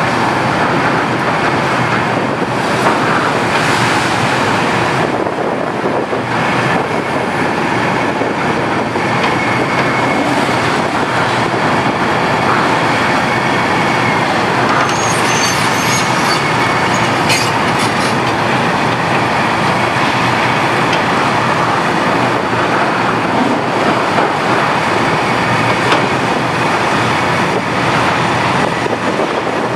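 A Liebherr R974B HD-EW high-reach demolition excavator at work, tearing into a concrete building: a loud, steady din of continuous clattering and rattling, with a few sharper crackles about halfway through.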